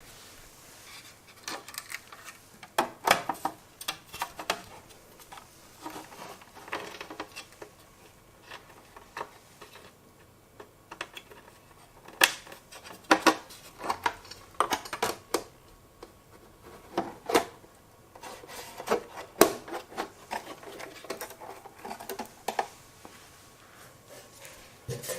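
Irregular clicks, taps and clatter of hard parts being handled, in scattered single knocks and short clusters, over a faint steady background hum.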